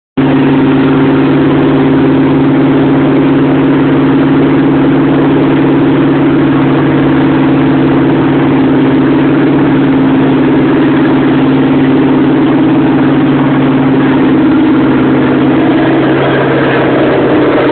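Ford Maverick V8 engine idling steadily, a constant rumble with no revving.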